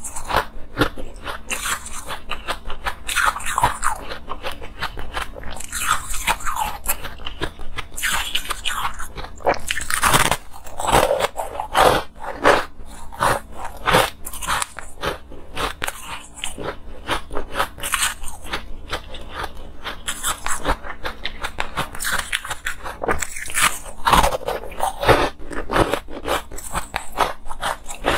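A person biting and chewing bars of crumbly, granular frozen ice, close to a clip-on microphone. Crisp crunches come in a dense stream throughout, with louder bites every few seconds.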